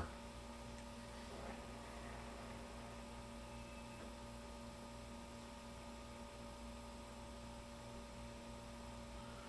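Steady faint electrical mains hum with a light hiss.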